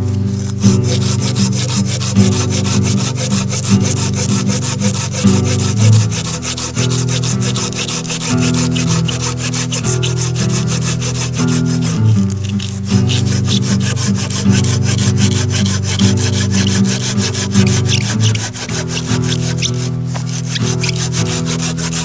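Curved-blade pruning saw cutting through a small log in steady back-and-forth strokes, the teeth rasping on the wood. Background music plays underneath.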